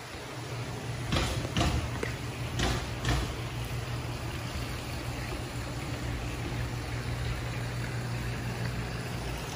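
A steady low hum, with a few short scuffing noises between about one and three seconds in.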